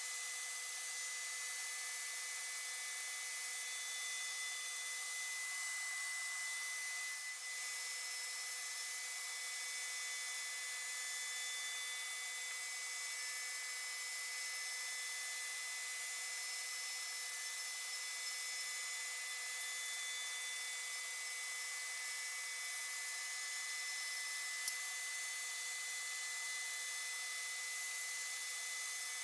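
Homemade CNC router surface-milling (flattening) its wooden spoilboard, the router spindle cutting steadily with a vacuum cleaner sucking up the chips at the cutter: an even whine over a constant hiss. There is one brief click near the end.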